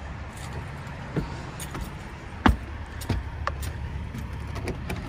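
Footsteps climbing wooden porch steps and crossing the deck, a few separate knocks with the loudest about two and a half seconds in, over a low steady rumble.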